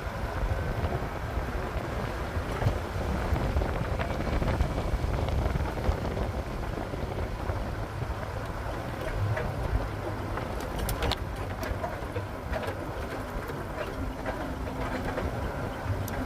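Steady low rumble of a vehicle driving, with a few faint clicks about two-thirds of the way through.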